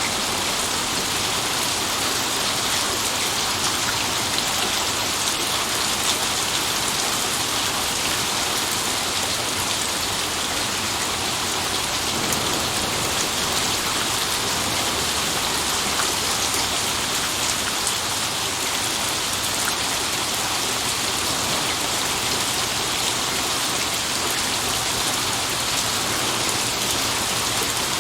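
Steady heavy rain falling and splashing on a hard surface, a dense even hiss with scattered drop ticks.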